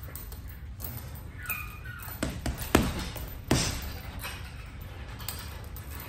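Boxing-glove punches landing on a hanging heavy bag: a handful of separate hits, the loudest three close together around the middle, with a short squeak just before them.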